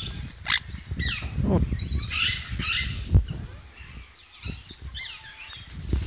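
Parrots chirping and squawking in short calls that glide up and down, over a low rumble, with two sharp knocks about half a second and three seconds in.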